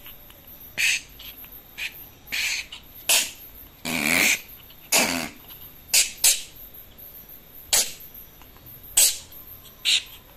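Opossum growling: about a dozen short, harsh hissing puffs at uneven spacing, roughly one a second, with a longer one about four seconds in. It is the defensive sound of a nervous opossum that wants to get away.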